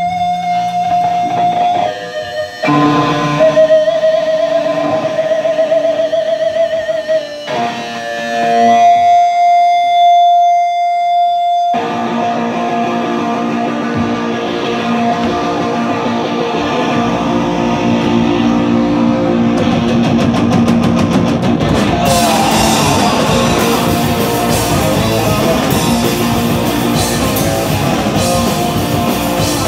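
Live punk band: distorted electric guitar holds long, ringing single notes, then the full band with drums comes in loud about twelve seconds in and grows denser near the twenty-second mark.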